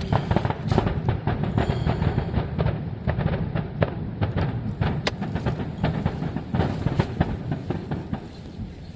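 Fireworks finale: a dense barrage of booming and crackling shell bursts, many per second, easing off near the end.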